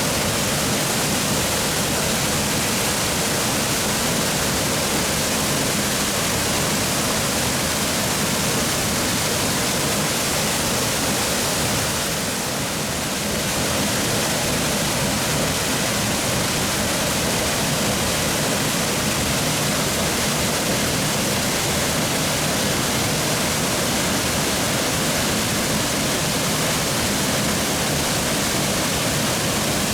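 Steady rush of a small plunge waterfall dropping straight onto bedrock, briefly a little quieter about twelve seconds in.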